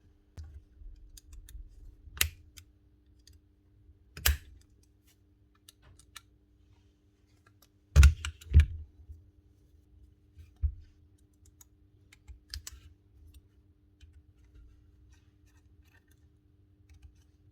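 Scattered clicks and knocks of a Basso 23-gauge pin nailer and hand tools being handled during repair, the loudest pair about eight seconds in, over a faint steady hum.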